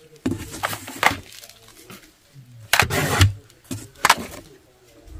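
Plastic toy guns handled in and against a cardboard box: several short knocks and scrapes of hard plastic on cardboard.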